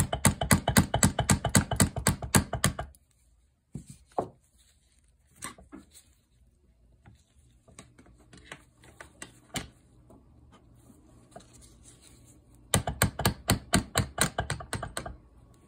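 Rapid light taps, about seven a second, in two runs of two to three seconds with a few single knocks between: driving the piston pin out of a Husqvarna 2100cd chainsaw piston that is stuck.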